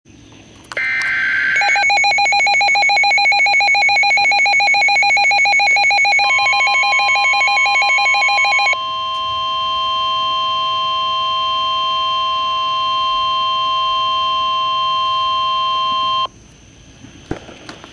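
NOAA Weather Radio Emergency Alert System alert: a brief burst of warbling data tones, then a rapidly pulsing electronic beep, joined about six seconds in by the steady 1050 Hz warning alarm tone, which carries on alone and cuts off suddenly about two seconds before the end.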